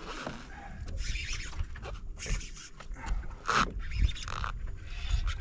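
Irregular scrapes and knocks on a small fishing boat, over a low wind rumble on the microphone.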